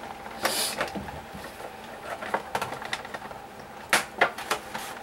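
Handling noises from plastic toy packaging and scissors: scattered light clicks and a brief rustle about half a second in, then two sharper clicks about four seconds in.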